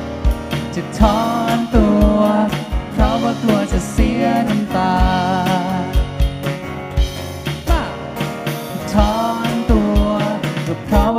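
Live band playing a slow pop song, with singing voices over a steady drum beat of about two kick-drum thumps a second.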